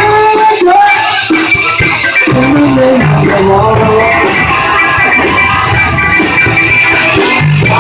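Live band playing loud dance music: drums and other instruments, with a singing voice over them.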